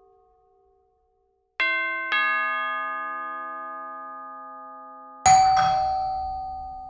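Doorbell chime: a two-note ding-dong, high then lower, about one and a half seconds in, each note ringing out and fading slowly. About five seconds in comes a louder single chime strike with a sharper attack and a low hum beneath it.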